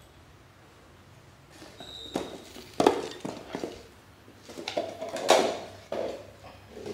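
An upturned plastic dog bowl knocked and scraped across a tiled floor as a puppy noses it along, with the puppy's claws clicking on the tiles. The loudest knocks come a little under 3 seconds in and again around 5 seconds in.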